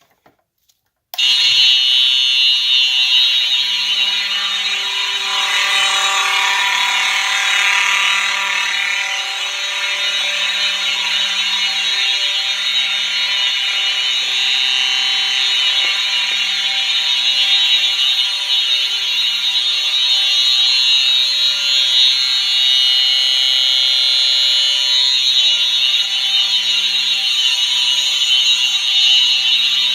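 Simplex 4903 fire alarm horn strobes, powered at 24 volts, sounding a loud, harsh, continuous horn tone that switches on suddenly about a second in and holds steady without a break.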